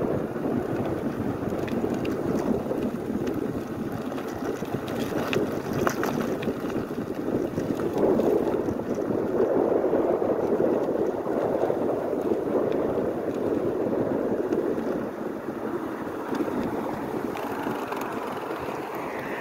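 Wind rushing over the microphone of a moving e-bike, a steady rushing noise that swells for several seconds in the middle.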